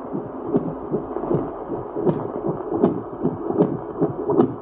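Toitu FD-300 fetal Doppler's loudspeaker playing a pulsing, whooshing blood-flow signal from its ultrasound probe, beating a little faster than once a second, with a few sharp clicks of the probe against the skin.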